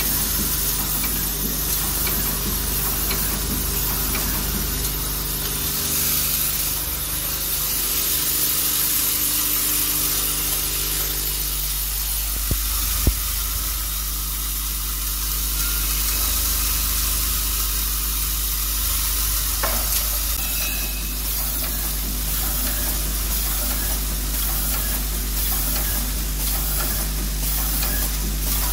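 Servo-driven high-speed thread tapping machine running: a steady motor hum under a constant hiss. There are two sharp clicks about halfway through and faint regular ticks in the later part.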